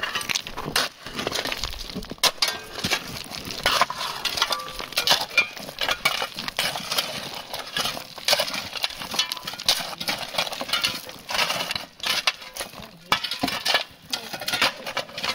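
Steel rock bars and shovels digging and prying among rocks and logs: a steady run of irregular scrapes, clinks and knocks of metal on stone, with loose rocks clattering.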